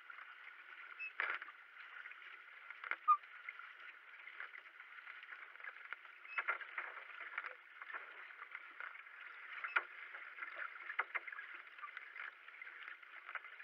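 Racing kayak under way as the paddler strokes: a steady hiss of water along the hull with irregular splashes and knocks from the paddle blades and boat, a sharper knock about three seconds in.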